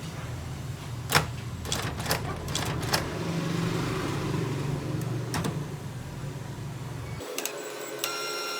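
Canon Pixma G1020 ink-tank printer running its first-time start-up, its motors whirring with a few sharp clicks from the mechanism as it charges the ink lines into the print head. The low whir cuts off abruptly near the end, followed by a steady high tone.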